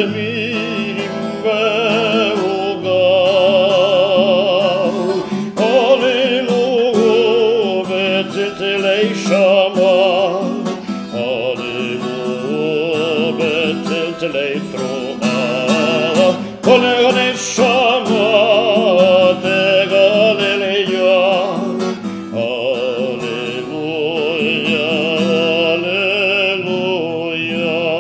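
A cantor singing a melody in the classical European (Ashkenazi) style, using whole tones and semitones, in a trained, operatic voice with wide vibrato. He accompanies himself strumming a Cort 12-string acoustic guitar.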